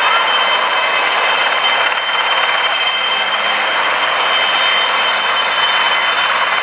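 Puma military helicopter flying low and close, its twin turboshaft engines giving a steady high whine over a loud, even rushing noise.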